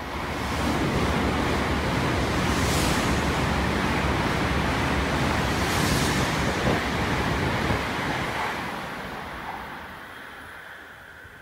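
A Tokaido Shinkansen bullet train passing through a station at speed without stopping. The loud rush of air and wheel noise builds within the first second, holds for about seven seconds, then fades away.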